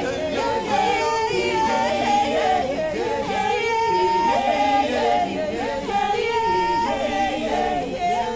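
A small a cappella vocal group singing in layered, overlapping parts, several women's and men's voices at once with no instruments.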